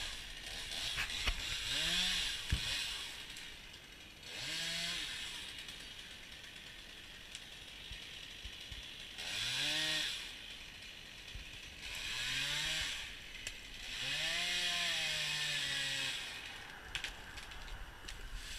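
Chainsaw up in the tree, revved in about five short bursts, each rising and falling in pitch, with the rasp of the chain cutting wood.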